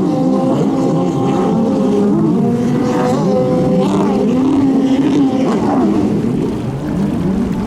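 Several racing jet ski engines running hard together, their pitch rising and falling as the riders accelerate and back off.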